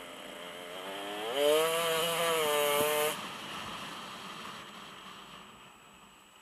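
Dirt bike engine heard from the rider's helmet camera, revving up hard for about two seconds, then cut off suddenly as the throttle closes, leaving a fading, quieter run.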